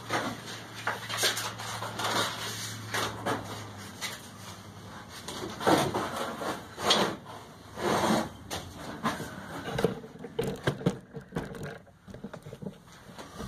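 Handling noise from changing the sanding belt on a belt grinder: irregular knocks, clatter and scraping, with a low hum that stops about four seconds in.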